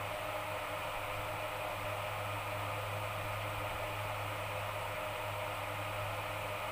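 Steady background hiss with a low hum, unchanging throughout; no sneeze or other sudden sound.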